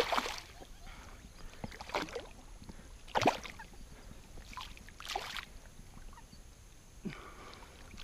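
Water splashing in shallow, weedy water as a hand grabs at a curimbatá fish: several separate splashes, the loudest about three seconds in.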